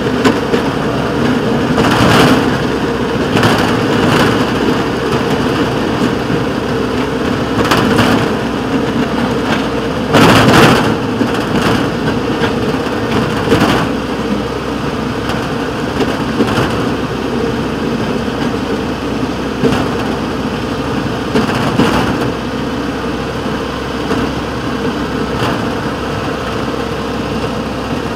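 Small engine of a rail motorcar (speeder) running steadily as it rolls slowly along the track, with a few louder noises on top, the loudest about ten seconds in.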